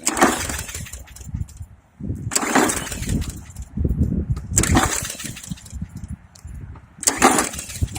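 Briggs & Stratton 300E series 125 cc mower engine being pull-started, about four pulls of the recoil starter roughly two seconds apart, each a rasping crank. The engine fires but will not keep running.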